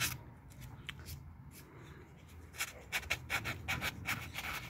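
Sandpaper (240 grit) rubbed by hand over the curb-rashed lip of a metal car wheel rim, sanding down the gouges. A few scattered strokes at first, then from about two and a half seconds in a run of quick back-and-forth strokes, about four or five a second.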